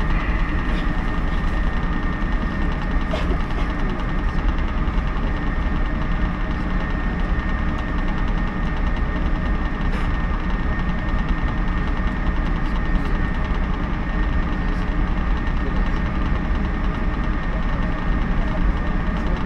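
Interior of a JNR 113 series electric train pulling away from a station and gathering speed, with its traction motors and wheels on the rails running steadily.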